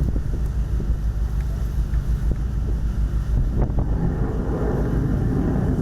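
Wind buffeting the microphone aboard a ship at sea, over a steady low rumble.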